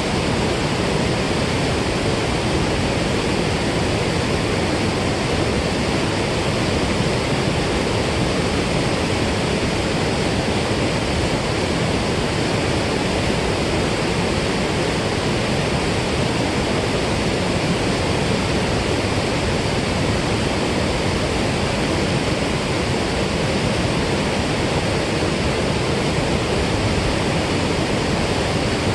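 Water rushing through a dam spillway outlet, a steady, loud, unbroken roar.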